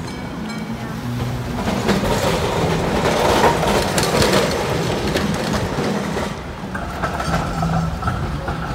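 A W-class tram rolls past on street tracks, its wheels clicking over the rail joints, loudest a few seconds in as it passes closest. A steady whine joins near the end.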